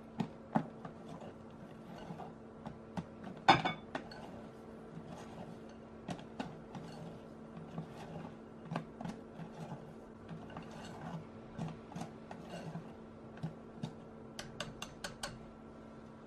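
Wire balloon whisk folding meringue into chiffon cake batter in a glass bowl: irregular clinks and taps of the wires against the glass, with soft swishing of the batter. The loudest clink comes about three and a half seconds in, and a quick run of taps comes near the end.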